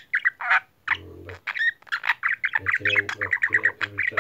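Male budgerigar chattering in quick, high-pitched warbling bursts, the running chatter of a talking budgie. Underneath, briefly about a second in and again through the second half, there is a low sound in short repeated pulses.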